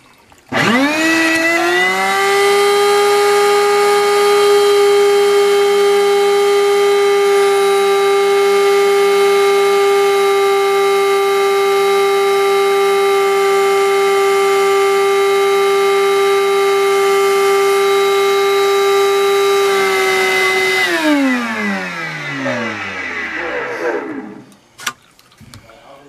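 Small shop vac switched on, its motor winding up to a steady high whine, running for about twenty seconds, then switched off and spinning down with a falling pitch near the end. It is sucking on a clogged air-handler primary condensate drain line to pull the clog free.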